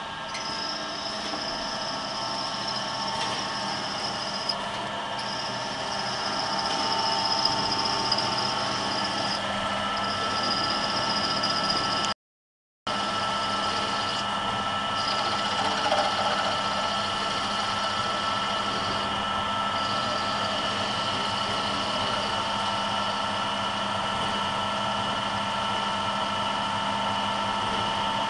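JZ-11.1 automatic double-sided lock shell drilling machine running: its two electric spindle motors hum steadily while the drills cut into the metal lock shell from both sides. The sound cuts out completely for a moment about twelve seconds in.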